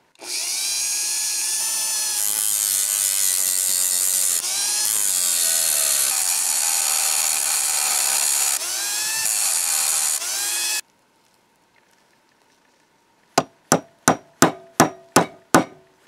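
Rotary tool with an abrasive cut-off wheel grinding off the peened end of a rusty hinge pin on a brass latch: a loud, high whine whose pitch dips and recovers as the wheel bites, stopping about eleven seconds in. Near the end come about seven sharp hammer taps on a pin punch, roughly three a second, driving the pin out.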